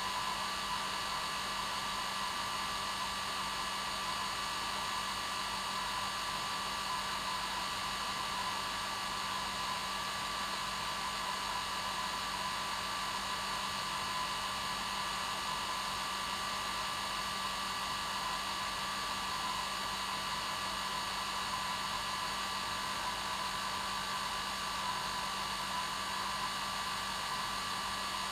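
Hair dryer running steadily on its normal setting: a constant airy rush with a steady motor whine. It does not change.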